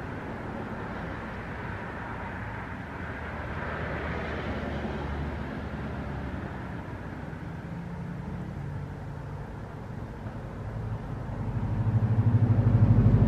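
A motor vehicle's engine running with a low hum, growing clearly louder over the last couple of seconds.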